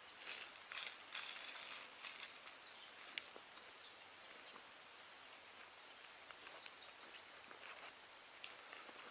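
Quiet outdoor ambience: a steady faint hiss, with a few short scratchy bursts in the first two seconds, then scattered light ticks.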